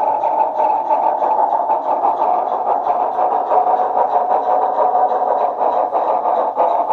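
Märklin Hamo BR 53 Mallet H0 model steam locomotive with an ESU LokSound decoder running with a long train on a track helix. The sound is a steady whirring hum with a quick, even beat of about six strokes a second.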